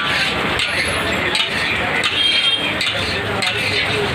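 Metal spatula scraping and clinking against a large iron kadhai as thick, grainy reduced milk is stirred, with a few sharp clicks over a steady hiss.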